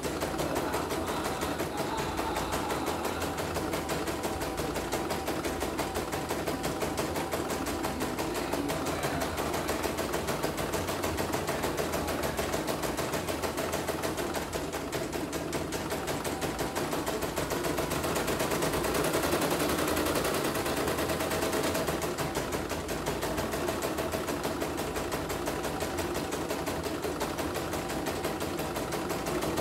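CNY computerized embroidery machine stitching out a design: a rapid, even clatter of needle strokes as the hoop shifts, running on a newly fitted rotary hook.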